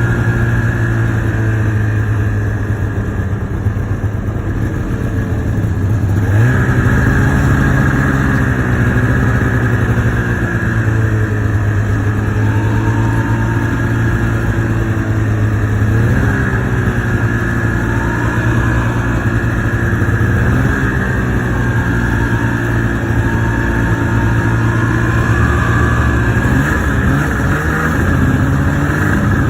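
Two-stroke snowmobile engine running under way, its note rising and falling several times as the throttle is worked.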